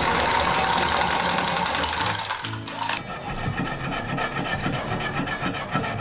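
Tubing cutter cutting through a copper water supply pipe: a steady grinding rasp for about three seconds, then a rapid, even scraping rhythm as it keeps turning on the pipe.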